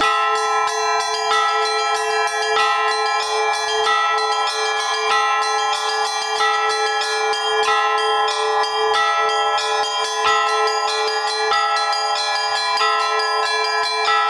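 A set of Russian-style church bells rung by one ringer in a steady, dense rhythm. The rhythm is a polyrhythm exercise mixing faster and slower note values over a sustained ring, with a stronger accent about every 1.3 seconds.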